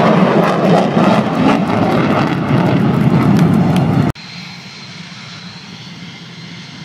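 Loud, crackling roar of F-16 Fighting Falcon jets flying in formation overhead. It cuts off abruptly about four seconds in, giving way to a much quieter, steady rumble of F-16 jet engines on a distant runway.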